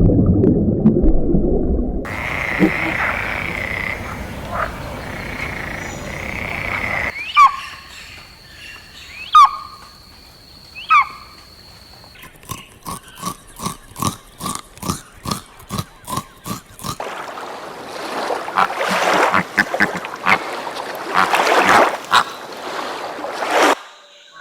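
A string of different animal calls spliced one after another: a low rumble, then a steady high-pitched call, three sharp gliding chirps, a run of quick pulsed calls at about three a second, and finally loud, harsh, rasping calls.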